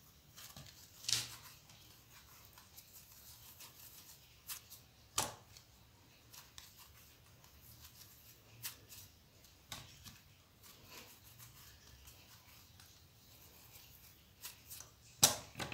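Hands rolling wheat-flour dough into balls and setting them in a non-stick pan: faint rubbing with scattered light taps, the sharpest about a second in, about five seconds in, and near the end.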